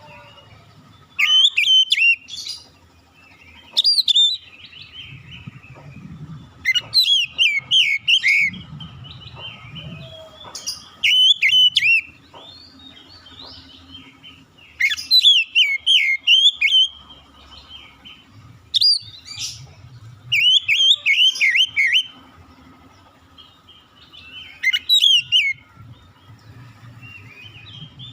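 Oriental magpie-robin (kacer) singing: loud bursts of rapid, varied whistled notes and sweeping phrases, repeated every couple of seconds with short pauses between them.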